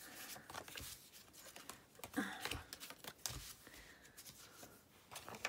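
Sheets of paper, vellum and card being lifted, slid and shuffled across a craft mat, giving soft scattered rustles and light taps.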